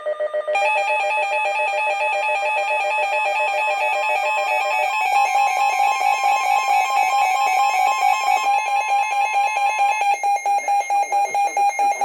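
Midland weather radio's electronic alert alarm going off: a loud, rapidly pulsing beep, signalling that a severe thunderstorm warning has been received.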